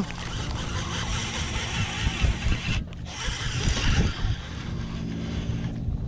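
Wind rumbling on the microphone over a steady rushing hiss of water around a bass boat, cutting out briefly about three seconds in and again near the end.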